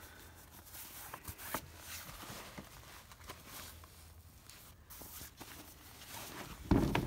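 Handling noise from the nylon fabric cover of a soft ballistic vest: a hand rubbing and pressing the cloth, with small rustles and taps, then a dull thump near the end.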